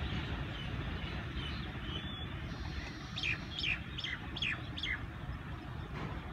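A bird calling a quick series of about five high notes, each falling in pitch. They come over a low, steady rumble.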